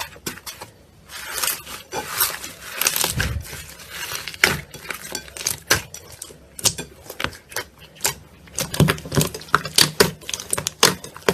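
Slime being worked by hand, making a run of sharp clicks and crackling pops, densest about one to four seconds in and then coming as separate snaps.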